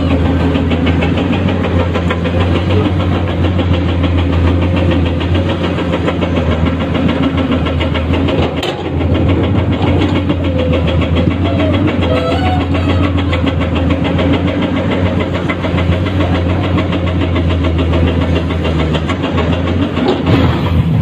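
Komatsu PC210-10 hydraulic excavator's diesel engine running steadily under digging load, with a single sharp knock about nine seconds in.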